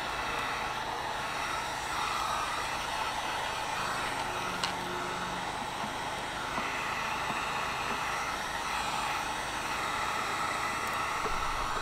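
Corded electric heat gun blowing steadily while a sand-filled PVC pipe is heated and bent. One light click comes a little before halfway.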